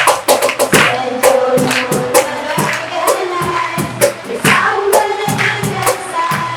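A song with singing voices over a steady percussive beat.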